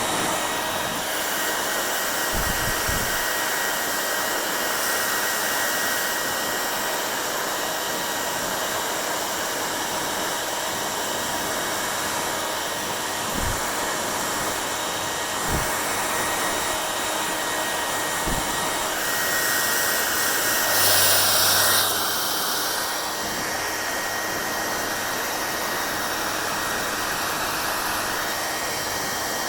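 Hair dryer blowing steadily, a constant rush of air with a thin whine running through it. Around twenty seconds in it grows louder and brighter for a couple of seconds. A few soft low thumps are heard along the way.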